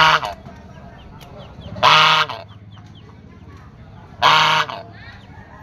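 Domestic geese honking: three loud calls of about half a second each, roughly two seconds apart.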